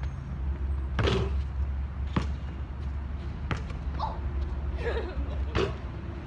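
A basketball shot striking the hoop about a second in, with a short ringing clang, followed by the ball thudding on the hard court several more times. A low steady rumble runs underneath.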